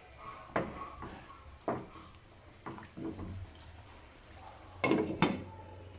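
Wooden spatula knocking and scraping against a nonstick frying pan while stirring pieces of chicken and pork in adobo sauce: about six separate knocks, the two loudest close together near the end.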